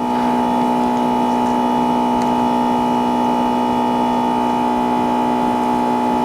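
A steady electrical hum made of several held tones, unchanging in level.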